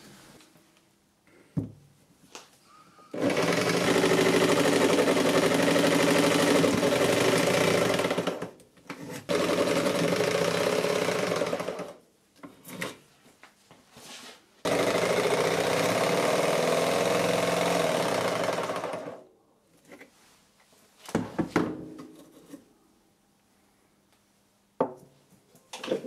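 Jigsaw cutting a square opening through Tasmanian oak hardwood from drilled corner holes, run in three steady bursts of several seconds with short pauses between them. A few light knocks follow near the end.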